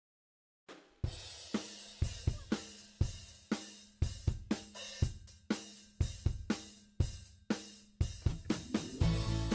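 Background music: silence, then a drum kit starts under a second in, playing a steady beat of about two hits a second with cymbals, and bass and other instruments join near the end.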